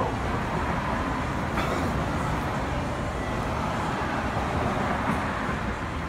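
Steady background road-traffic noise.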